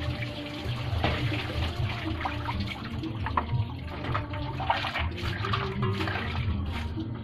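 Water splashing and running as something is washed by hand in a basin, with irregular sloshes and spatters.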